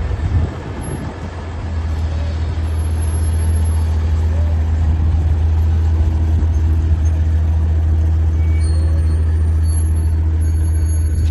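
Engine of an armoured military vehicle running with a steady low drone as it tows a gun carriage slowly past, getting louder over the first few seconds.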